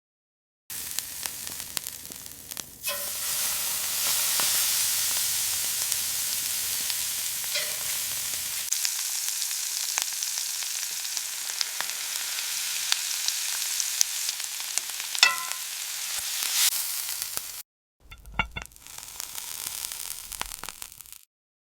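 Steak sizzling and frying in a hot pan, a steady spitting hiss with scattered pops that gets louder about three seconds in. It cuts off suddenly near the end, and a shorter, quieter stretch of cooking noise follows.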